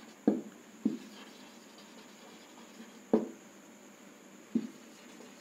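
Marker writing on a whiteboard: faint strokes with four short taps or knocks, the loudest about three seconds in.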